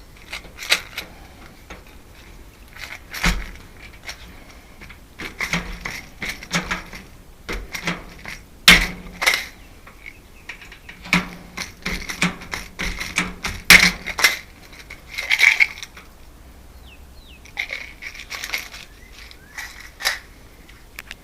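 Irregular metallic clicks, clinks and knocks of small lock parts and hand tools being handled, with a few heavier knocks, as a screen door lock is worked on.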